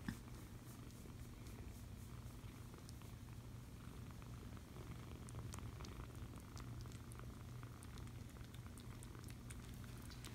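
Young kitten purring steadily while being stroked, with faint scattered ticks over the purr.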